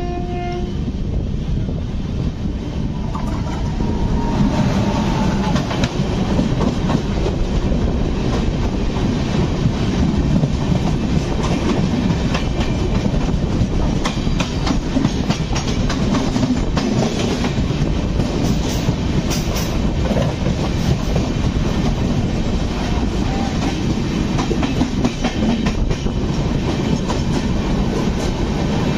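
Wheel clatter and rushing air at the open door of a moving express train, while another train's coaches pass close by on the adjacent track. A train horn ends about half a second in, and the noise grows louder a few seconds later as the passing train comes alongside.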